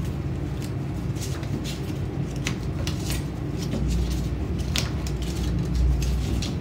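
A paper strip being folded back and forth into a concertina: short crisp rustles and crackles as each fold is pressed and creased, coming irregularly every second or so.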